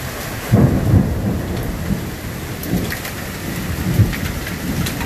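Heavy rain falling steadily, with low rumbles of thunder swelling about half a second in and again near three and four seconds.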